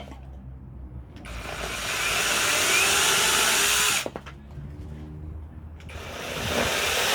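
PTLPuwer cordless mini chainsaw's electric motor and chain running in two bursts: it spins up about a second in and runs for nearly three seconds, stops, then starts again near the end.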